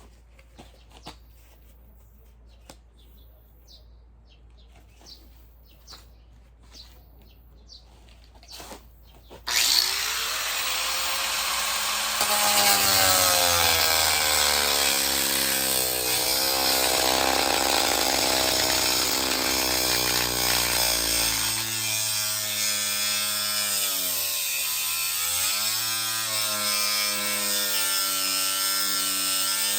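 Faint scattered clicks and taps, then about ten seconds in an electric power saw starts suddenly and runs loudly through the rest, its motor pitch sagging and recovering as it cuts under load.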